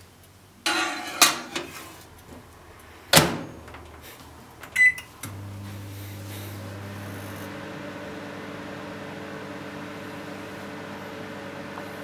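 Microwave oven being loaded and started: a clatter as the cabbage goes in, the door shut with a sharp knock about three seconds in, and a short keypad beep. Then, about five seconds in, the oven starts and runs with a steady hum.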